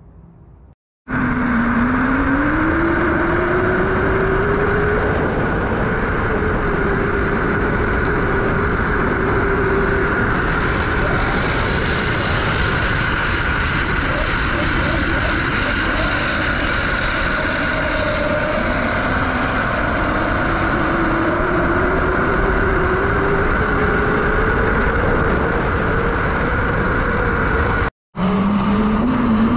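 Electric drift trike riding: its chain-driven electric motor whines, the pitch rising and falling slowly with speed, over loud wind and road noise. It starts about a second in and cuts out for a moment near the end.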